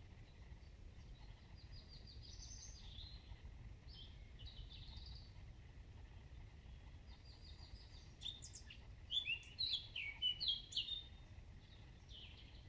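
Small songbirds singing: short phrases of quick repeated notes and trills, busiest and loudest from about nine seconds in, over a steady low rumble.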